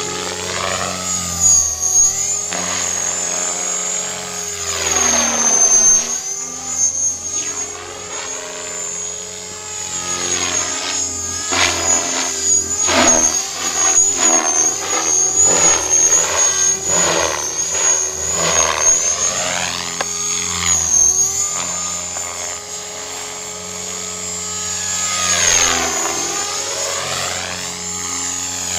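Align T-Rex 500 electric radio-controlled helicopter in flight: a steady high whine from the motor and gears over the rotor's whoosh, which swells and fades as it passes. A run of quick, repeated pulses comes in the middle.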